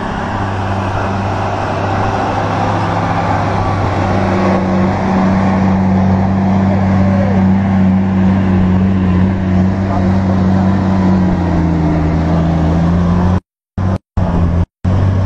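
Heavily loaded Iveco truck's diesel engine pulling steadily up a dirt ramp as the truck passes close by, its note shifting a little about four seconds in. The sound cuts out in three short gaps near the end.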